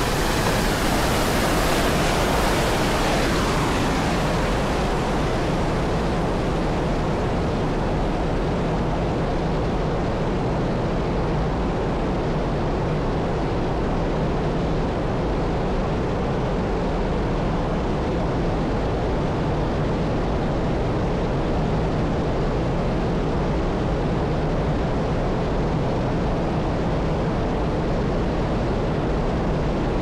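Steady rush of a waterfall pouring over and around a hanging turbine. A few seconds in, the bright hiss fades, leaving a duller, even rushing.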